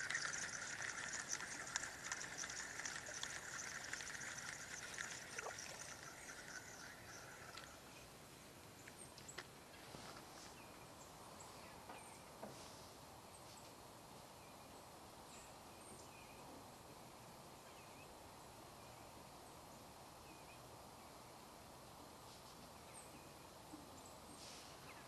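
A fishing reel being cranked: a steady, rattly whir that stops about seven and a half seconds in. After that there are only a few faint ticks over quiet outdoor background.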